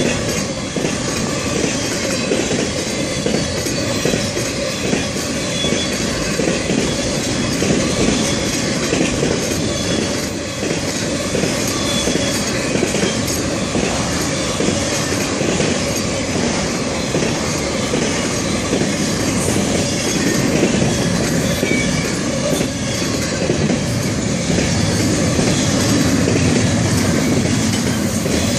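Intermodal freight train's container and trailer cars rolling past on steel wheels: a steady rumble of wheels on rail with many quick clicks, growing a little louder near the end.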